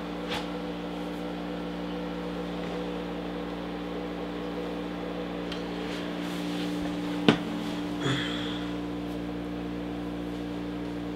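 Steady hum of a kitchen appliance, several even tones held throughout, with a sharp knock about seven seconds in and a softer one a second later.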